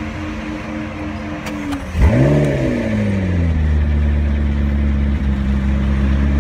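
A car engine starts about two seconds in, its speed swinging up briefly before it settles into a steady idle.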